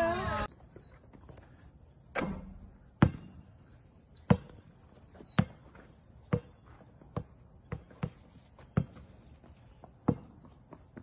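Singing cuts off about half a second in; then a basketball bounces on an asphalt court, about a dozen sharp bounces at an uneven pace.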